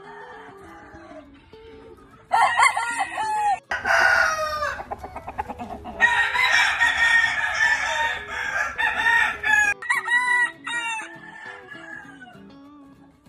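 Game roosters crowing, starting about two seconds in: a run of short crows, then one long drawn-out crow held for several seconds, and a last shorter crow before it dies away near the end.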